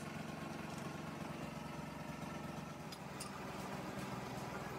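Large metal lathe running with a steady low hum, its four-jaw chuck spinning a mounted truck shaft. A couple of light clicks come about three seconds in.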